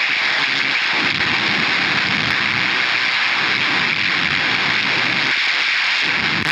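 Harsh noise from the Forcefield 2000, a PLL-based electronic noise device: a loud, dense, steady wall of grainy, distorted noise.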